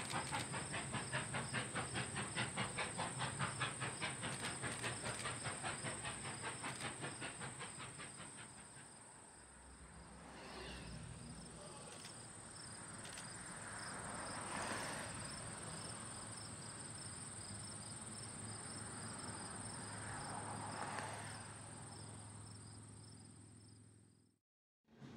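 Steam locomotive No. 7470, an 0-6-0, working past with a freight train. Its exhaust chuffs in a quick, even beat for the first several seconds, then gives way to a steady hiss of steam with a few louder swells, and the sound fades out near the end.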